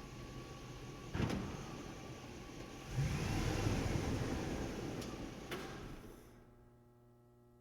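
Truck driving through a parking garage, its engine and tyres echoing off the concrete. A sharp knock comes about a second in, then the engine swells louder with a whine that rises and falls, two more clicks follow, and the sound fades away a little after six seconds, leaving a faint steady hum.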